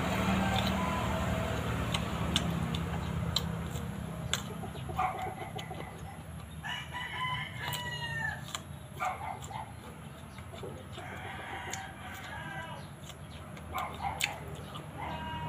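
A rooster crows about halfway through, with chickens clucking at other moments. Short crisp crunches of unripe green mango being chewed close to the microphone.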